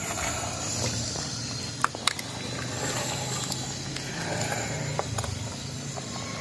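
Steel ladle stirring a pot of beef korma, clinking sharply against the pot twice a little under two seconds in and once more near five seconds, over a steady low background hiss.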